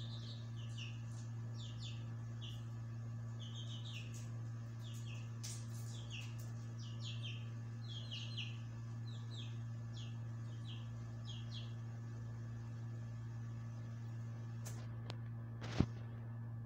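Small birds chirping in quick short clusters over a steady low electrical hum, with a single sharp click near the end.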